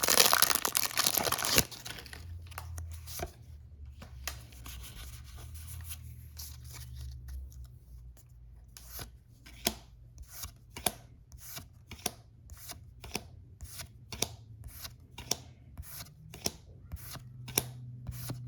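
A foil Pokémon booster pack wrapper torn open, a loud ripping crinkle that cuts off suddenly after about a second and a half. After some quieter handling, the trading cards are slid and flipped one by one, a steady run of sharp little snaps about two a second.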